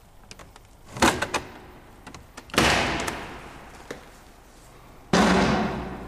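A few sharp knocks about a second in, then two heavy bangs, one near the middle and one near the end. Each bang dies away in a long echo through the empty building.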